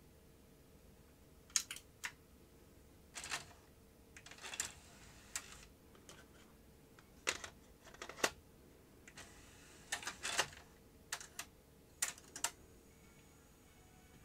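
Scattered clicks and clunks from the open Philips DCC900 Digital Compact Cassette deck's cassette holder and tape mechanism as they are handled and pushed down, with a couple of short scraping slides among them. A faint steady hum runs underneath.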